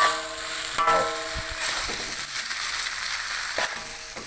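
Rice vermicelli frying in sauce in a pan, sizzling steadily. Two sharp knocks near the start ring briefly, and a single knock comes toward the end.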